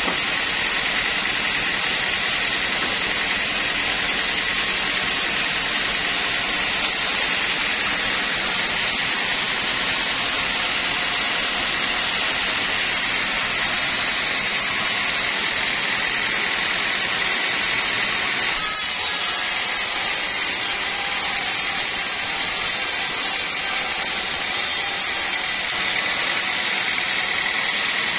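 Band sawmill running steadily, its motor and band blade giving a constant high-pitched whine over hiss, with a slight drop in level and a change in tone partway through.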